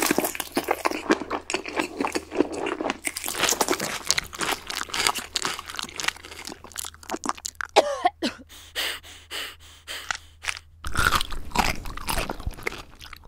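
Dense crunching and chewing, as of someone munching something crisp, with a brief pitched squeak about eight seconds in and heavier crunching near the end.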